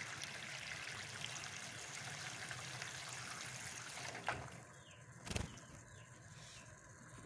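European goldfinch bathing, splashing and fluttering in shallow water; the splashing stops a little over four seconds in as it leaves the water, and a single short thump follows about a second later.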